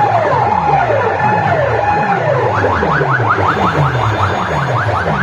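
Horn-loudspeaker sound system blasting an electronic competition track: repeated falling bass sweeps under sliding siren-like tones, which turn into rapid rising chirps about halfway through.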